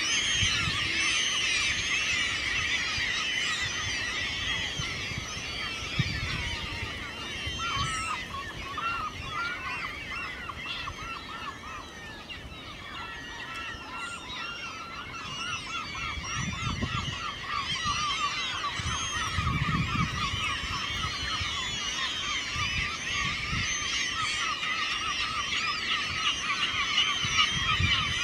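A large flock of gulls calling all at once, a dense chorus of overlapping cries. It thins a little around the middle and builds again towards the end.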